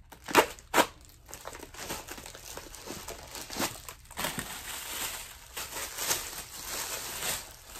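Plastic mailing packaging crinkling and rustling as a padded mailer is handled and a garment is pulled out of its plastic wrapping, with two loud sharp crinkles in the first second and a steady rustle after.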